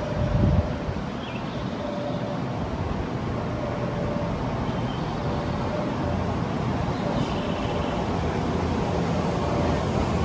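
Open-air railway platform ambience: a steady background rumble of traffic and trains, with a faint tone repeating in short beeps about once a second. There is a brief low thump of wind on the microphone about half a second in.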